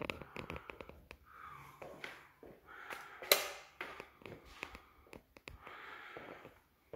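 Footsteps on a hard indoor floor mixed with scattered clicks and rustles of a handheld camera being carried; a sharp knock about three seconds in is the loudest sound.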